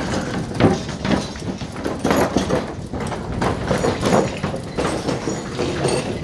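Bicycle tyres rolling over the loose wooden plank deck of a bridge, the boards knocking and clattering irregularly over a steady low rumble.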